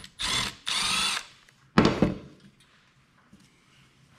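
Cordless electric ratchet running in two short bursts, spinning out the 10 mm screws that hold the exhaust on a 168F small diesel engine. A single sharp thunk follows about two seconds in.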